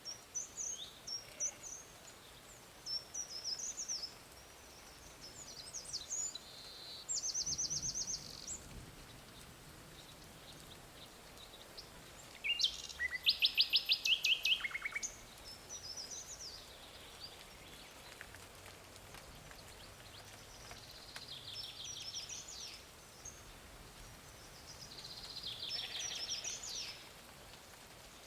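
Wild birds singing: several high chirping phrases and fast trills, the loudest trill about halfway through, over a steady faint outdoor hiss.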